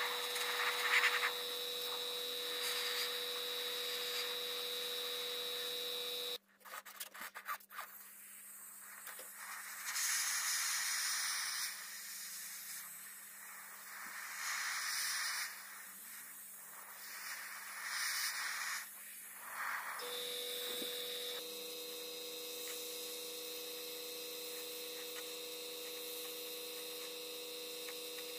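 A small airbrush compressor humming steadily, breaking off abruptly about six seconds in and coming back near the end. In the quieter stretch between, the airbrush gives several short hisses of air and paint spray.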